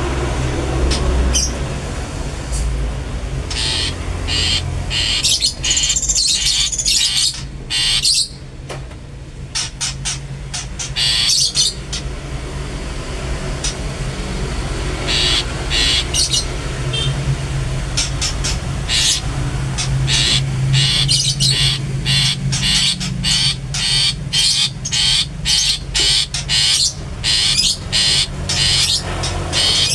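Long-tailed shrike (cendet) singing a long run of short, sharp, repeated calls, scattered at first and coming several a second in the second half, over a steady low hum.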